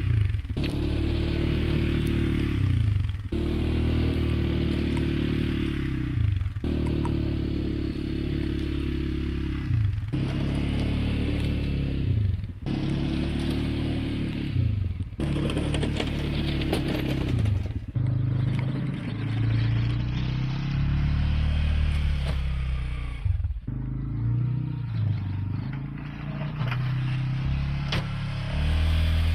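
CFMoto CForce 520 ATV engine running under load while pushing snow with a front plow blade, with scraping and clatter from the blade. The engine note changes abruptly every few seconds.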